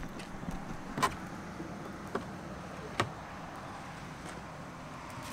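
Three short, sharp knocks about a second apart over a low, steady background noise, as gear is handled on a boat deck.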